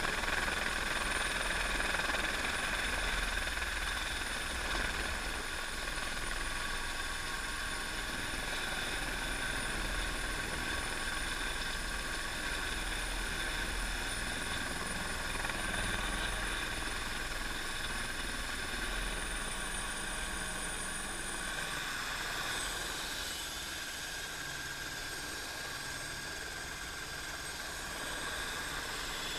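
Helicopter turbine and rotor running, heard on board as a steady mechanical rush with a high, even whine. About two-thirds of the way through, the highest whine falls away and the overall sound eases slightly.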